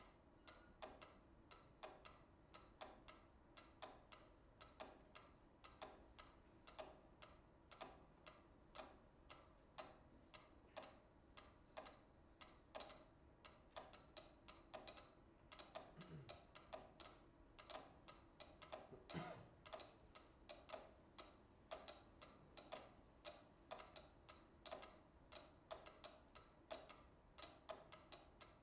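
Several pyramid-shaped mechanical metronomes ticking at different tempos at once, their clicks overlapping in an uneven, shifting pattern.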